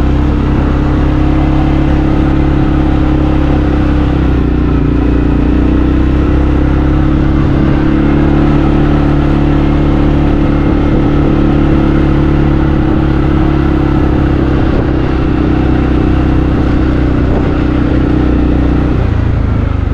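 Vehicle engine running steadily at low, even revs while driving slowly up a rough dirt logging road, heard close up. The engine note shifts slightly near the end.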